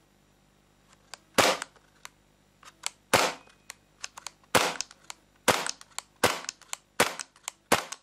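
Tanio Koba VP70 gas blowback airsoft pistol being fired, about seven sharp reports at uneven intervals, each with a short gas hiss as the slide cycles, and lighter mechanism clicks in between.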